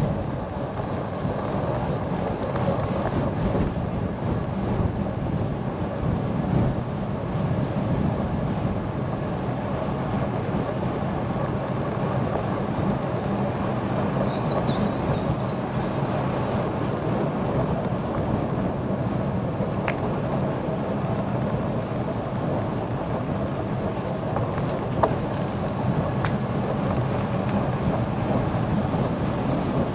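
Steady rush of wind on the microphone mixed with road noise from a moving bike.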